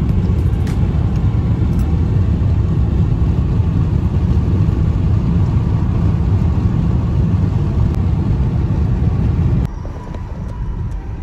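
Car driving at highway speed, heard from inside the cabin: a loud, steady low road and engine rumble that drops abruptly to a quieter hum near the end.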